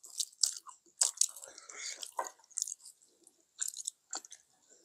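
People chewing food at close range, with soft mouth sounds and scattered light clicks as chopsticks touch the dishes.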